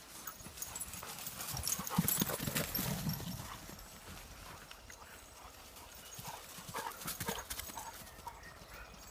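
Footsteps and crackling of twigs and leaves on a woodland floor, in a loose rhythm of knocks and thuds, loudest in a cluster about two seconds in and again about seven seconds in.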